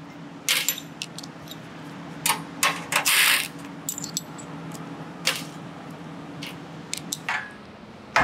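Small metal hardware, nuts and bolts, clinking and rattling as it is handled at a workbench: a string of sharp clicks with a longer rattle about three seconds in. A faint steady hum sits underneath and fades near the end.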